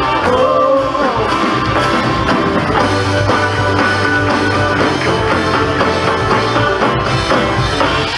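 Live band playing an instrumental stretch of a song, with an upright bass holding steady low notes under guitar and drums.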